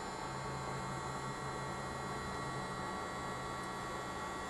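Room tone: a steady low electrical hum with faint hiss and a few thin high steady tones, and no handling sounds.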